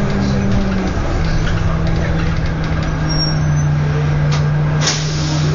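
City bus's diesel engine running as heard from inside the bus while it drives; the engine note drops about a second in, then holds steady. A brief sharp noise near the end.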